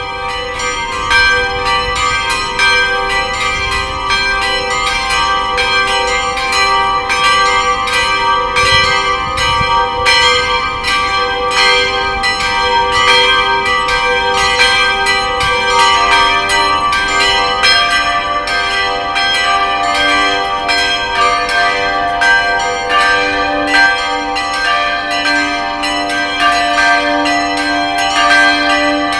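A set of tuned bells ringing a rapid peal, several strikes a second, each note ringing on into the next. About halfway through, the run of notes shifts to include lower bells.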